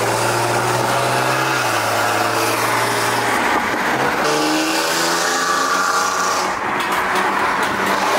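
Car driving at speed on a highway: a steady engine drone under road noise, then the engine note rising as the car accelerates about halfway through.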